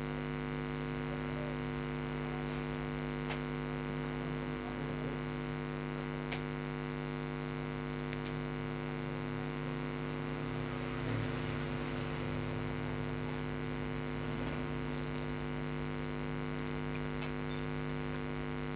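Steady electrical mains hum, one unchanging buzzy tone with its overtones, with a few faint clicks.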